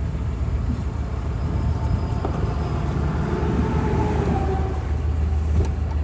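Highway traffic passing over a steady low engine hum; one vehicle's road noise swells in the middle and fades away.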